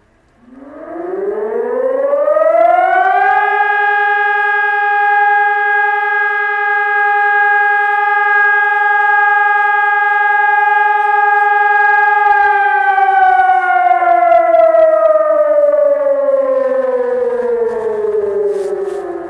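Ergatec EWS 600 civil-defence siren sounding one tone of the fire-alarm signal. It winds up over about three seconds, holds a steady pitch for about nine seconds, then slowly winds down in pitch.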